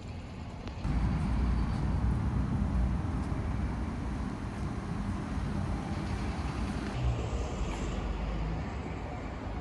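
Outdoor town-street ambience: a steady low rumble that jumps louder about a second in and then holds.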